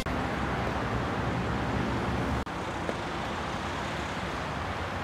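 Steady road traffic and vehicle engine noise, with a brief dropout about two and a half seconds in.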